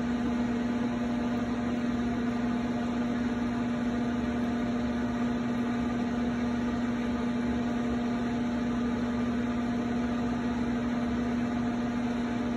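Potter's wheel motor running at a steady speed while porcelain clay is thrown: an even hum with one strong steady tone.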